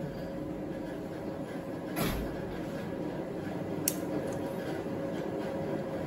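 Compression-tester hose and screw-in adapter being handled at the spark-plug wells of a bare VW 1.6 BSE engine: a dull knock about two seconds in and a sharp click near four seconds, over a steady background hum.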